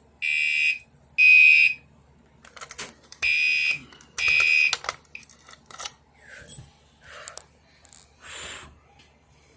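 Fire alarm horn sounding in a temporal-three pattern: three short, loud, high-pitched blasts, a pause, then two more blasts before it stops. A few clicks and handling noises follow.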